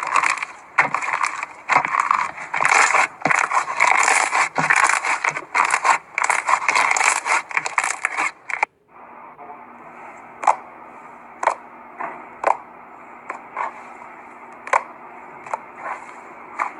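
Slime being squeezed and worked by hand: a dense run of crackling, scraping and clicking for the first eight or so seconds. It stops abruptly and gives way to quieter, single sharp pops or clicks about every half second to a second over a steady low hum.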